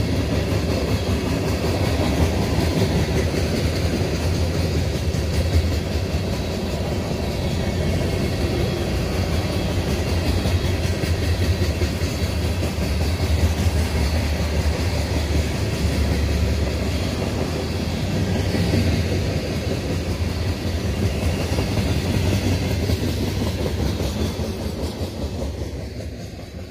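Freight train's ballast hopper cars rolling past with a steady low rumble and the clickety-clack of wheels over the rail joints, easing off near the end.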